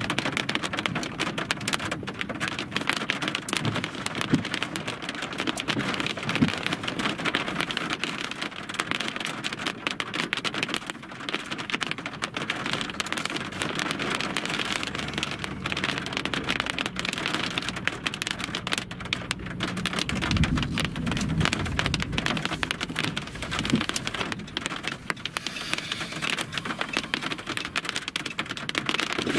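Rain falling on a vehicle's windshield and roof, heard from inside the cab as a dense, steady crackle of drops. A low rumble rises and fades about two-thirds of the way through.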